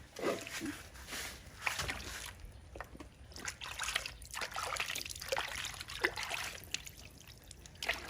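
Bath water splashing and trickling in irregular bursts as a baby monkey is washed.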